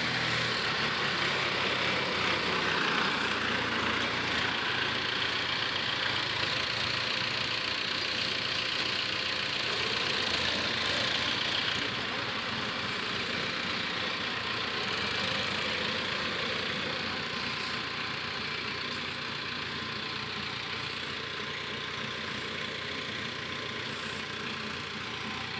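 Tractor diesel engine running steadily under heavy load as a Mahindra Arjun tractor strains to pull a log-loaded trolley, hard enough to lift its front wheels.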